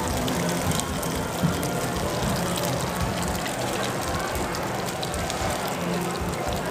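Busy night-market ambience: a steady crackling hiss with many small scattered clicks and faint voices in the background.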